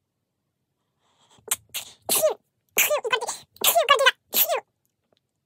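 A girl sneezing and crying out in a quick run of about six short, loud bursts, starting about a second and a half in. These are her reactions to a test swab pushed up her nostril.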